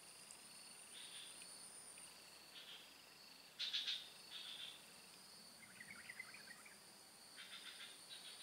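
Faint insect chorus: a steady high-pitched drone with repeated short pulsed chirping trills, the loudest about three and a half seconds in, and a brief scatter of twittering notes around six seconds.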